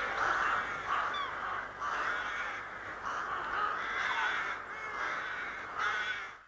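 A large flock of crows calling together, many harsh calls overlapping into a continuous din that cuts off abruptly near the end.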